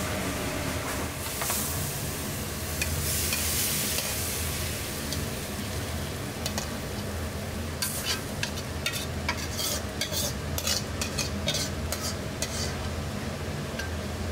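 Beef and vegetable noodles sizzling in a wok while being stirred. About eight seconds in come a quick run of metal clicks and scrapes as a ladle and spatula work the noodles out of the wok, all over a steady low hum.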